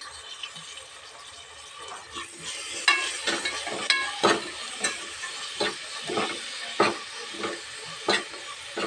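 Ground mint, coriander and onion masala paste sizzling in hot oil in a pressure cooker. From about two seconds in, a spoon stirs it through, scraping and knocking against the metal pot with brief ringing clinks.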